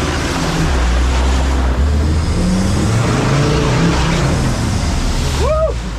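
Off-road vehicle's engine running hard and revving, its pitch rising and falling, over heavy noise from the drive. Near the end a short rising-and-falling whoop cuts through.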